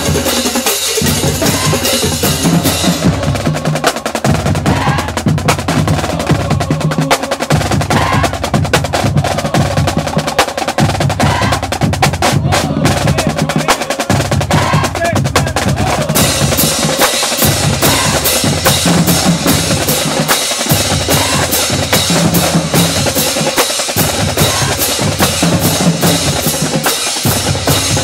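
Marching band drumline playing a loud cadence: rapid snare drum strokes and rolls over a repeating bass drum pattern, with cymbals crashing at the start and again through the second half.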